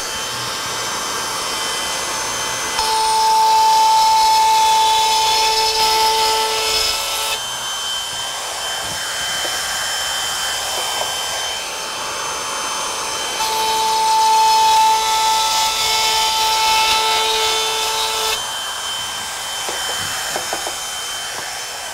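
Handheld trim router running, routing a groove in wood for a drawer's bottom panel. It makes two cutting passes, about three seconds in and again about thirteen seconds in, each lasting four to five seconds and louder, with a strong steady whine; between them the router runs on more quietly.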